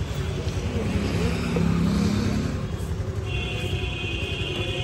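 Steady low engine rumble, swelling to a louder hum about a second or two in. A high steady tone sounds near the end.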